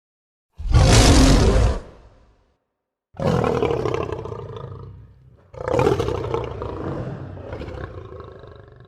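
Lion roaring, three separate roars: a short loud one about half a second in, then two longer ones from about three seconds and five and a half seconds, each starting abruptly and trailing off.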